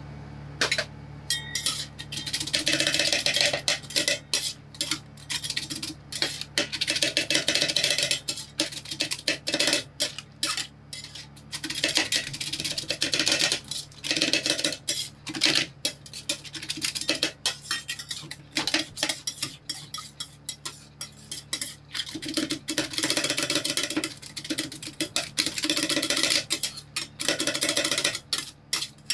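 Two metal spatulas rapidly chopping and scraping on the steel plate of a rolled-ice-cream cold plate, clacking against the metal in quick irregular bursts as Cheetos are chopped into the cream base. A steady low hum runs underneath.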